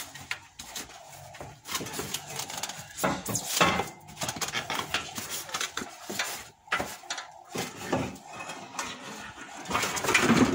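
The rusty steel rear crash bar of a VW Polo being worked loose and pulled out from behind the bumper: irregular metal knocks, clanks and scraping, loudest near the end as it comes free.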